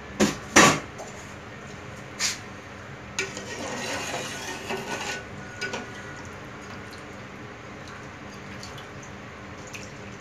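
A ladle knocking sharply against an aluminium stockpot three times in the first couple of seconds, then stirring rice through broth in the pot for about two seconds, with scraping and small clinks.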